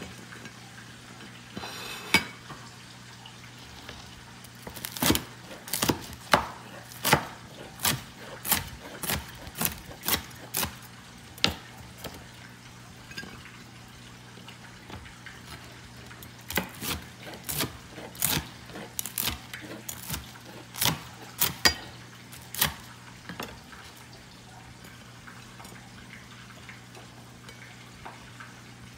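Chef's knife chopping slabs of crispy deep-fried pork belly on a plastic cutting board: two runs of sharp knocks, about one to two a second, with a pause between.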